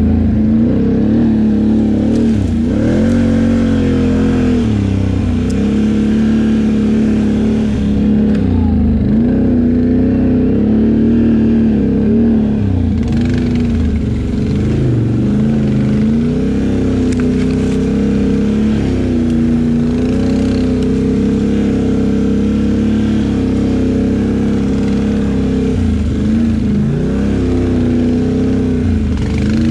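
Can-Am Outlander XMR 850 ATV's V-twin engine running under throttle. Its pitch drops and climbs back several times as the throttle is eased off and opened again.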